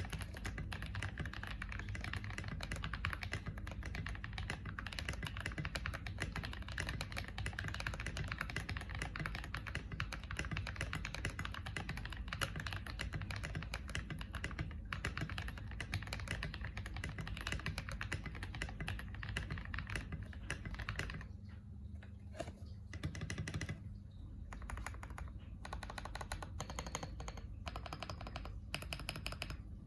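Fast, continuous typing on a KBD67 Lite mechanical keyboard with lubed Drop Holy Panda tactile switches and SA-profile keycaps. The keystrokes thin out with brief pauses about two-thirds through, then come more slowly and separately near the end.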